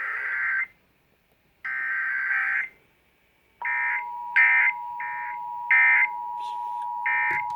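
Emergency Alert System test tones. First come two bursts of SAME digital header data, each about a second long with a silent gap between them, the second ending about two and a half seconds in. About a second later the steady two-tone attention signal starts, with several short data bursts chirping over it.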